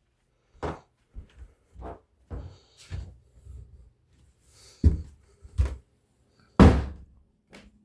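Handling knocks and clunks, as of dishes and kitchen doors being moved: about nine separate knocks, the loudest about five seconds in and near seven seconds in. A faint low hum starts near the end.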